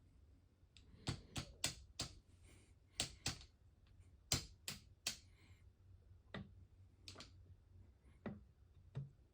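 Sharp metallic clicks in irregular clusters as a horizontal milling machine's cutter and arbor are rocked back and forth by hand, touching off on top of the workpiece before cutting. The clicks bunch up in the first half and come singly and further apart near the end.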